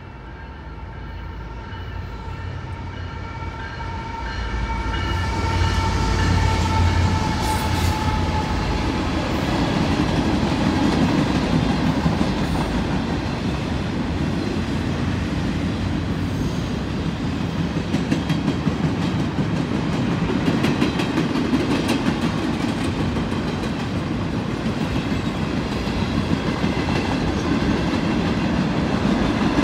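Freight train passing. The locomotive's air horn sounds over the first several seconds, dipping slightly in pitch as it fades, over a growing diesel rumble. The string of freight cars then rolls by with a steady rumble and repeated wheel clicks over the rail joints.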